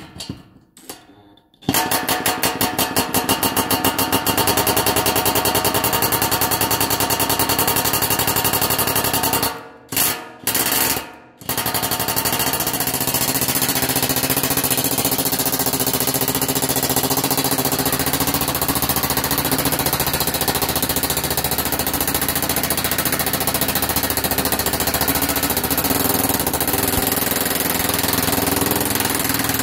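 Impact wrench hammering on a rusted 12 mm exhaust heat-shield bolt, working it loose. A long run of rapid hammering, a short pause with two brief bursts about ten seconds in, then a second long run.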